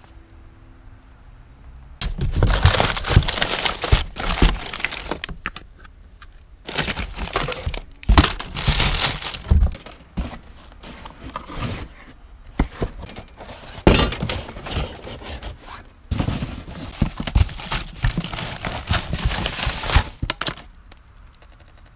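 Hands rummaging through cardboard boxes of crumpled packing paper: rustling and crinkling of paper and cardboard, with knocks from items being shifted. It comes in several stretches with short pauses, starting about two seconds in.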